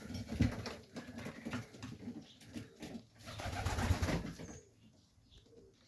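Serbian highflyer pigeons cooing in a loft, with a louder scuffling noise about three to four seconds in before it goes quiet.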